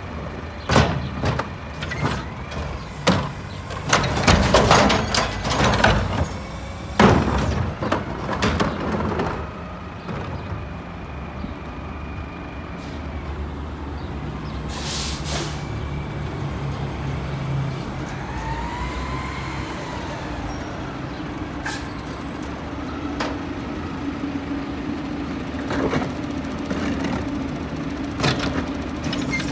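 Mack LEU garbage truck with a McNeilus carry can: a run of clattering bangs in the first nine seconds as a wheeled cart is handled and tipped into the carry can. The diesel engine then runs steadily as the truck moves up, with a short hiss of air about fifteen seconds in. A few more knocks come near the end as the next cart is brought to the can.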